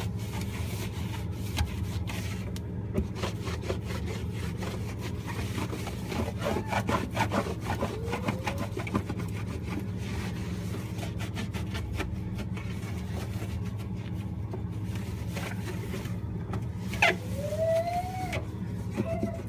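Damp microfiber cloth scrubbed back and forth over refrigerator surfaces in repeated rubbing strokes, with a few short squeaks. A steady low hum runs underneath.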